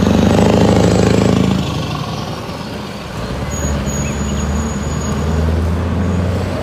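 Diesel engine of a Scania semi-truck pulling a container trailer, driving past. The engine is loudest for the first second and a half, eases off, then builds again from about four seconds in.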